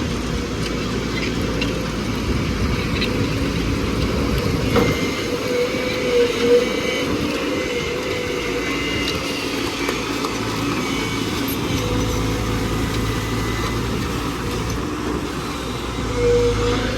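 JCB NXT 140 excavator's diesel engine running steadily under working load, with a few brief knocks about five and six seconds in and again near the end.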